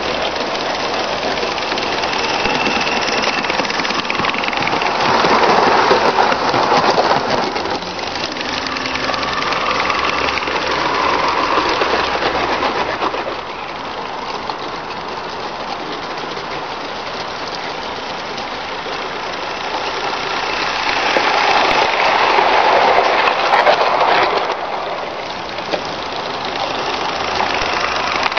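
Small SM32 live steam locomotive chuffing steadily as it hauls its train, with the wagons rattling over the rail joints. The sound swells louder twice as the train passes close.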